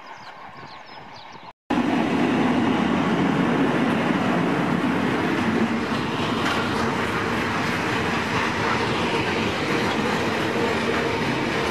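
A freight train of open box wagons passing close by, making a loud, steady rumble of wheels on rail. A fainter train sound is cut off by a brief silence about one and a half seconds in, and the close, loud passing starts abruptly after it.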